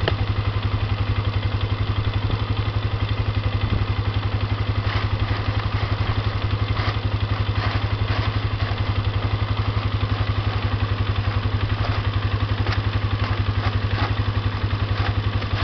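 ATV engine idling steadily, an even rapid pulse close to the microphone, with a few faint clatters over it.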